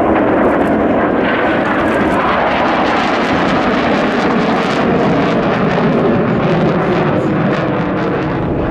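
Swiss Air Force F/A-18 Hornet's twin jet engines at high power during a display pass, a loud continuous jet roar with a faint whine that falls in pitch as the jet goes by.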